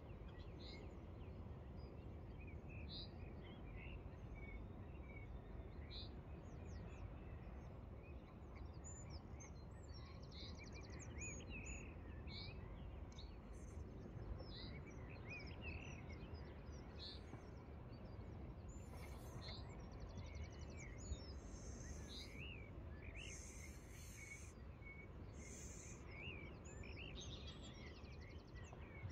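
Several small songbirds chirping and singing, scattered calls all through, over a steady low background rumble.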